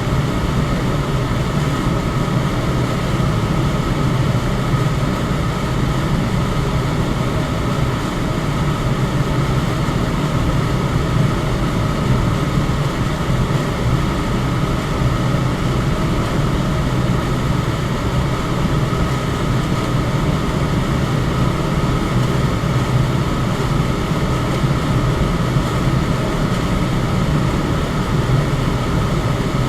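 Electric fan running steadily: an even rush of moving air with a low hum and a faint, steady higher whine, unchanging throughout.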